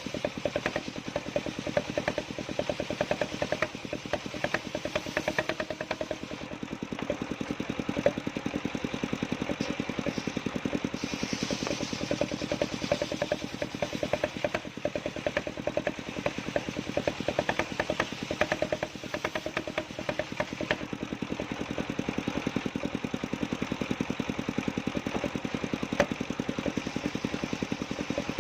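Engine of a portable circular saw rig running steadily with a fast, even chugging.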